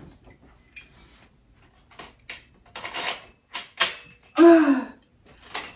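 Scattered light clicks and knocks of a metal garment rack's tubing and fittings being handled as the last caster is pushed into its hole. A little past halfway there is one short voiced grunt of effort.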